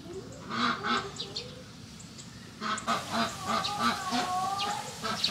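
Waterfowl calling: a few short, repeated honking calls about half a second in, then a longer run of calls from about three seconds on.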